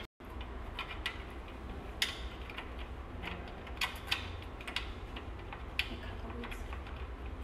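Scattered small mechanical clicks and taps, the sharpest about two seconds in, as the adjustment knob on a wire saddle stitcher's saddle table is worked by hand, over a low steady hum.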